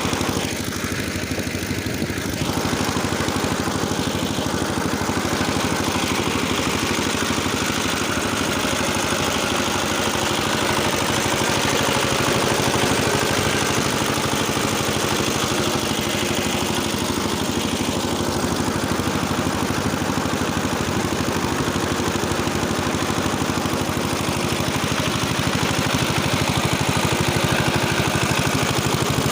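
Small engine driving a rotary tiller, running steadily under load as the blades work the soil.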